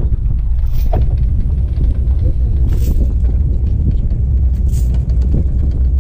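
Steady low rumble of a fishing boat's engine, mixed with wind on the microphone, and a brief hiss about every two seconds.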